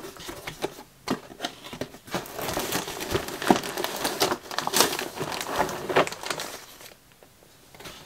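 A cardboard plastic-model kit box being opened and its contents, packed in a clear plastic bag, pulled out and set down. The bag crinkles and rustles, with cardboard scraping and light knocks, then dies away about seven seconds in.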